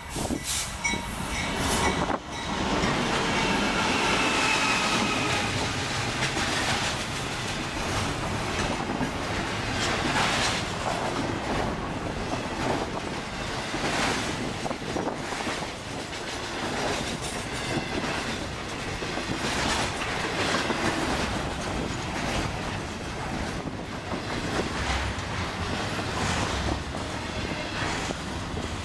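CN freight locomotives passing close by, then a long double-stack container train rolling past, its wheels clicking over the rail joints in a steady rhythm with a thin wheel squeal in the first few seconds.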